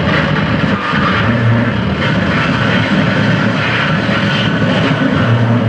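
Live harsh noise played on effects pedals and electronics: a loud, dense wall of distorted noise over a steady low hum, which swells about a second in and again near the end.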